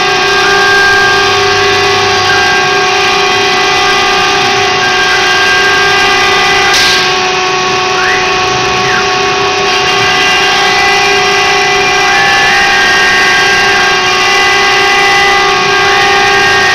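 CNC router running: a steady whine made of several sustained tones, with short rising and falling motor whines every so often as the machine moves.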